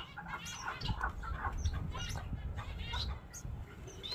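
Goldfinch chicks calling: a quick run of short, high chirps, several a second and overlapping, over a low rumble.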